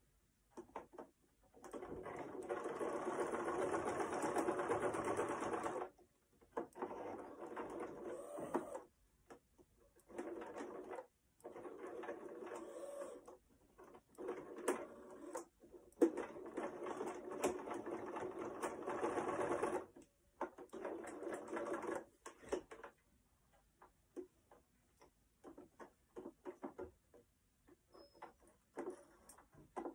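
Small electric sewing machine stitching in runs of one to four seconds, stopping and starting again several times. Near the end only scattered light clicks are heard.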